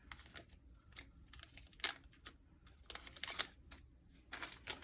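Wrapper of a baseball card pack crinkling and tearing open, in short irregular crackles and clicks, the sharpest about two seconds in.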